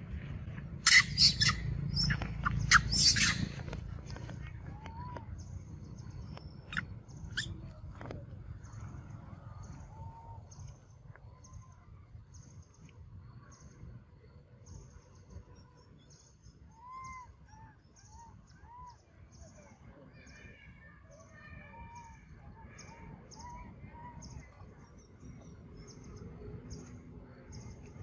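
Birds chirping: short arched calls come and go, over a steady run of brief high chirps repeating about twice a second. A few sharp clicks come in the first three seconds.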